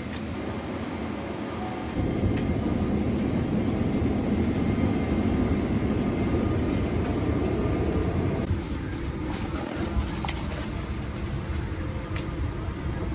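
Steady rushing hum of a parked airliner's cabin air-conditioning and ventilation. It shifts in level and tone twice, with a few faint clicks later on.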